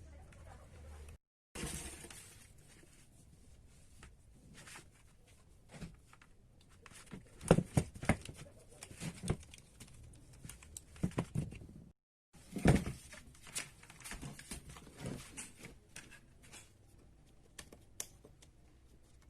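Irregular clicks, taps and light knocks of small hard parts being handled, with the sound cutting out completely for a moment twice.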